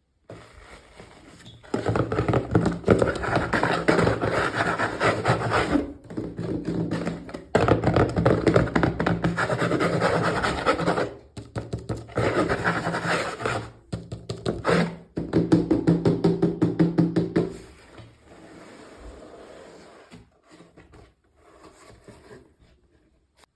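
Packaging being handled and opened by hand, with dense crackling and clicking in several long stretches that die down to quieter handling near the end.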